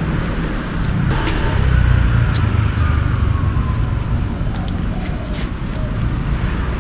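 Road traffic rumbling, with a motor vehicle passing and getting loudest about two seconds in.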